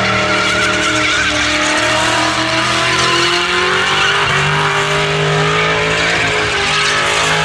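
Holden Commodore ute's engine held at high revs in a burnout, its rear tyres squealing in a continuous wavering screech.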